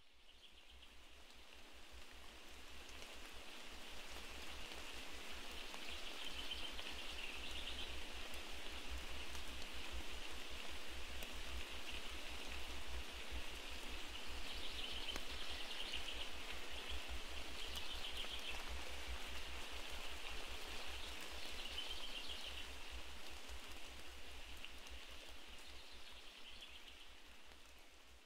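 Steady rain-like hiss, fading in at the start and out near the end.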